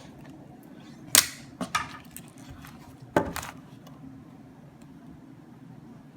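A few sharp clicks and knocks from handling hard objects: one loud knock about a second in, two smaller ones just after, and a loud double knock a little after three seconds, over a steady low hum.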